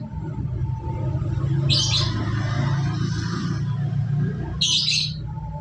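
Long-tailed shrike giving two short, harsh calls about three seconds apart, over a steady low rumble.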